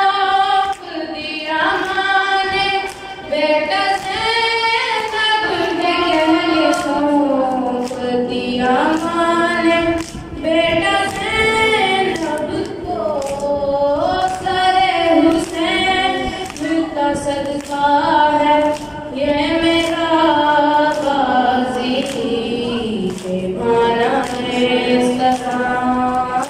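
A noha, a Shia mourning lament in Urdu, sung a cappella through a microphone by a boy's voice with other voices joining in as a chorus. It moves in long, wavering held notes.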